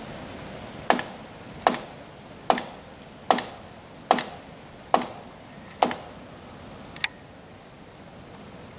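Hand hammer striking about once every 0.8 seconds, eight sharp blows with a short ring, the last one lighter and after a longer pause, as the man works on a timber stringer atop the bridge pier.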